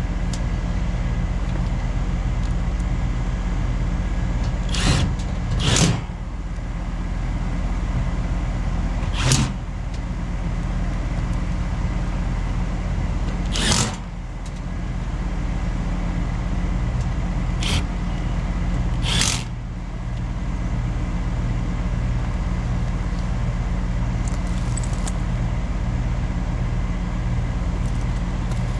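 A steady mechanical hum with a low, even drone, broken by six short sharp clicks or knocks spread through the first two-thirds.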